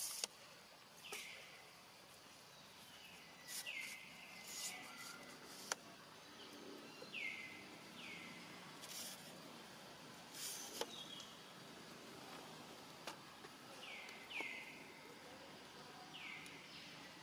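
Faint outdoor ambience with short animal chirps that fall in pitch, recurring irregularly every second or few, and a couple of sharp clicks and brief high rustles.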